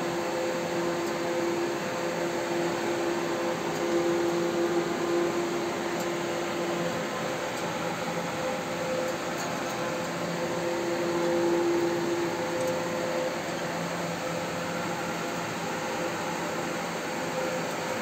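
Steady machine whir and hiss, like a fan or air conditioner running, with a low hum that fades in and out.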